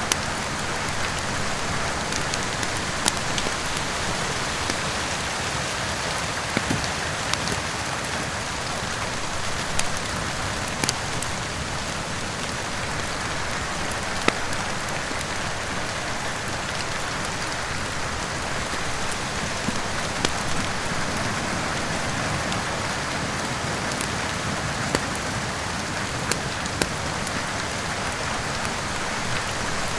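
Steady heavy rain with a wood fire crackling, its sharp pops scattered irregularly through the rainfall.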